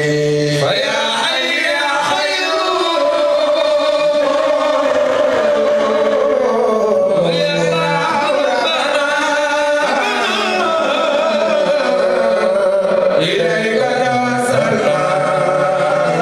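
Men singing an Islamic devotional chant into microphones, with long drawn-out notes over a low held tone.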